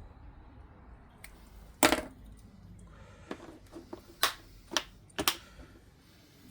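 Small tools and parts being handled on a workbench: a series of short, sharp clicks and knocks, the loudest about two seconds in, while wiring connectors are worked on.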